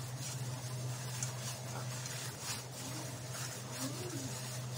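A plastic-gloved hand kneading homemade play dough into flour in a glass bowl: soft, scratchy rustling strokes over a steady low hum.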